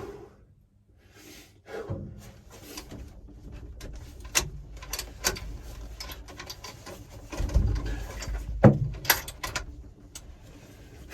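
Handling noises in a small room: a run of clicks, knocks and rustles, with a low thump around eight seconds in and a sharp knock just after it, the loudest sound.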